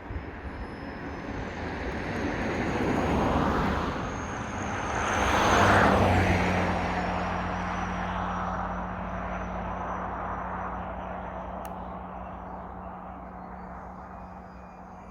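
Electric motor and propeller of a small foam RC aerobatic airplane buzzing as it flies, swelling twice to its loudest about six seconds in. It then settles into a steady hum that slowly fades.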